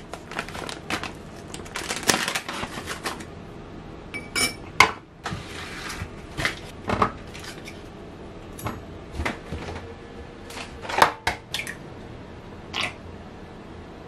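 Kitchen utensils clinking and tapping against ceramic and stainless-steel bowls: a busy run of small clatter over the first three seconds, then separate sharp clinks every second or so.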